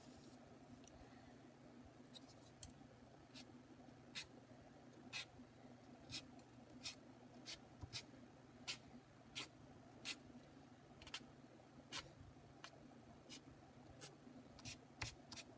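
Faint, short scraping strokes of a piece of board dragged over paper, spreading tempera paint, about one and a half a second from about two seconds in.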